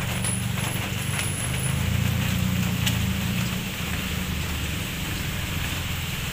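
A car engine running close by, its low rumble swelling and then easing off about halfway through, over the steady hiss of light rain.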